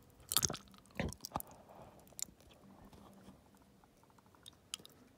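Wet mouth noises from an open mouth with a gummy candy on the tongue: sharp saliva and tongue clicks and smacks, the loudest in the first second and a half, then fainter scattered clicks.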